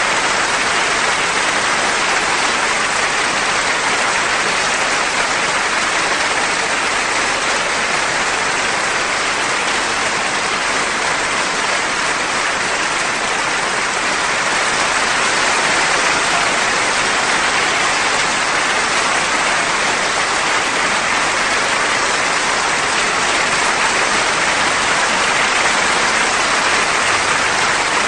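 Opera house audience applauding: steady, dense clapping with no break.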